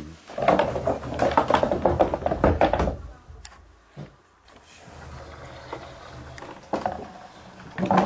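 Old wooden door latch with a hanging wooden block being worked by hand: wooden parts rattle and clatter for the first few seconds, then a few separate wooden knocks.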